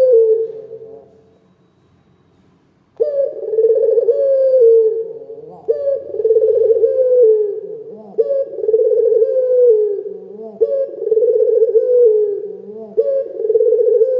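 Ringneck dove cooing: one coo trails off just after the start, and after a pause of about two seconds a steady run of repeated rolling coos follows.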